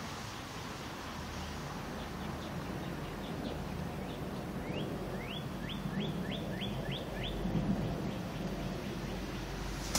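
A small bird chirping: a quick run of short rising chirps, about three a second, near the middle, with a few fainter chirps before it.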